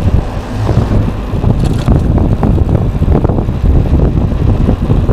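Loud, fluctuating wind rumble on the microphone of a body-mounted camera while a mountain bike is ridden down a paved road.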